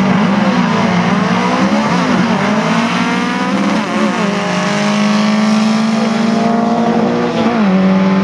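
Two modified VW Beetle drag cars accelerating hard from the start line. The engines rev up through the gears, with the pitch dropping at each shift about two and four seconds in and again near the end.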